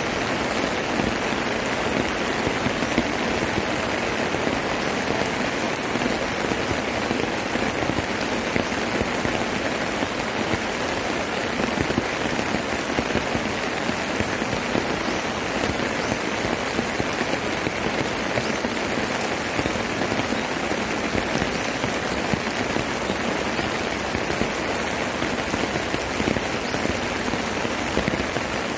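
Steady rain falling, with a dense run of individual drop hits.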